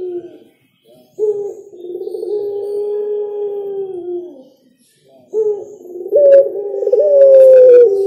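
Caged collared dove (derkuku) cooing in long drawn-out coos. One coo runs from about a second in to past four seconds; another begins about five seconds in, steps up in pitch and grows louder toward the end.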